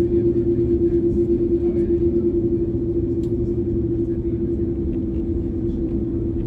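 Airliner cabin noise during taxi: the engines at idle give a steady hum over a low rumble. The hum throbs about four times a second at first, then evens out.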